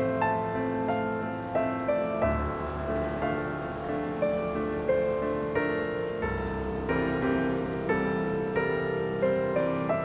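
Background piano music: a slow run of single notes over low sustained bass notes, with the bass changing about two seconds in and again just past six seconds.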